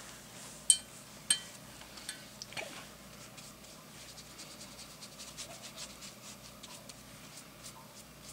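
A paintbrush clinking twice against a glass water jar, with a short ring each time, then a run of faint, quick, scratchy watercolour brush strokes on paper.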